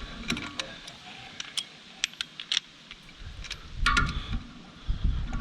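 Small metallic clinks and taps of a socket and breaker bar being fitted and shifted on the wood chipper's knife mounting bolts, with a louder thump about four seconds in.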